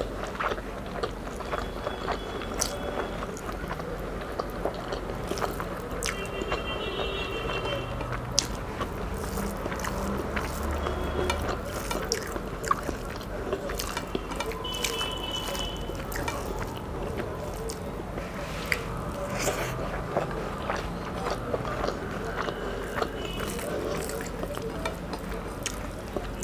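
Eating by hand: fingers mixing rice with sautéed amaranth greens on a plate, and mouthfuls chewed with wet mouth and lip sounds, a steady run of small clicks and smacks.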